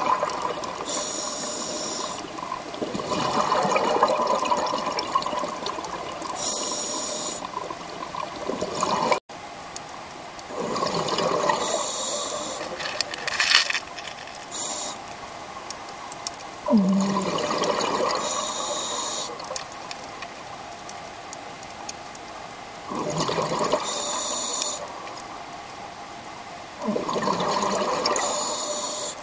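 Scuba diver breathing through a regulator underwater: a short hiss on each inhalation, then a longer burst of exhaled bubbles. About five breaths come at an even pace of one every five to six seconds.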